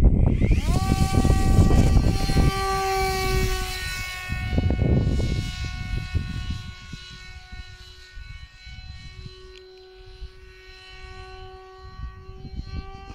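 Electric motor and propeller of an FX-61 Phantom RC flying wing spooling up sharply to full throttle for a hand launch, then a steady whine that fades as the plane flies off into the distance. Wind rumbles on the microphone throughout.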